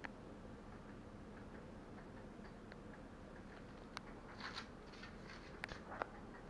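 Faint room tone with a steady low hum, broken by a few light clicks and taps, a small cluster about two-thirds of the way through and a couple more near the end.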